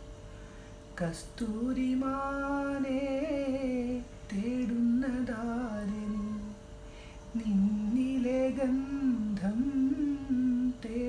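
A man singing a slow melody without words, in long held, wavering notes, pausing briefly about four seconds in and again a little later. A faint steady hum runs underneath.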